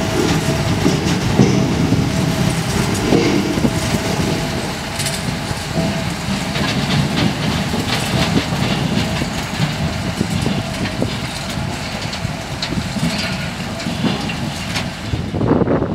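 Edenhall 753 trailed sugar beet harvester at work: its machinery and elevator running, with sugar beet tumbling off the elevator into a trailer. It makes a steady rattling clatter of many small knocks over the drone of the machines, with a faint steady whine, and swells briefly just before the end.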